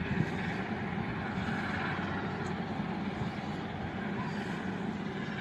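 Distant steam train hauled by the Peppercorn A1 Pacific locomotive Tornado, passing along the shore: a steady rumbling noise with no clear exhaust beat.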